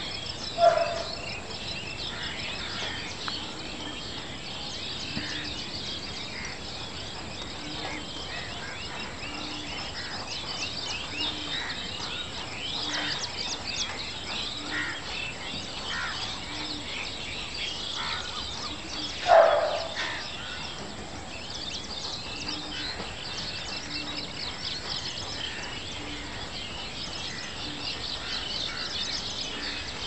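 Wild birdsong at a lake: dense high chirping goes on throughout, under a soft low note repeated about once a second. Two louder short calls stand out, one about a second in and one about nineteen seconds in.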